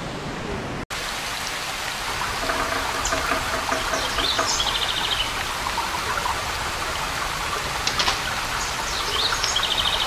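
Steady rush of running water in forest, with birds calling over it: a run of short repeated notes about two to four seconds in, and quick high trills at about four seconds and again near the end.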